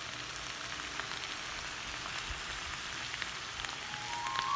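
Diced potatoes, onion and dried mint sizzling in oil in a frying pan: a steady hiss with fine crackles. A musical note comes in near the end.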